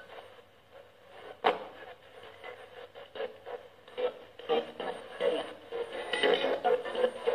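Tinny, radio-like audio from a small speaker: choppy fragments of voice and sound, with a sharp click about a second and a half in.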